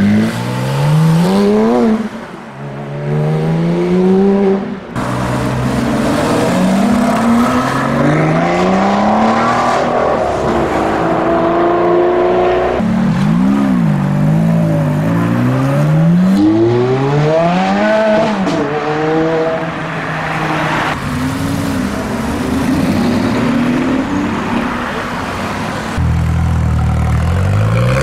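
Performance car engines revving and accelerating away one after another, each climbing in pitch through the gears with short drops at the shifts. The sound changes abruptly from one car to the next several times.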